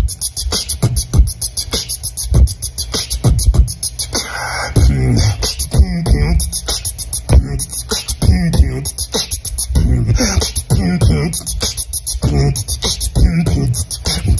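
Human beatboxing: a steady, tight hip-hop drum groove made with the mouth, fast high hi-hat-like ticks over low kick-like thumps, with bending, pitched vocal sounds woven in a few seconds in and again later on.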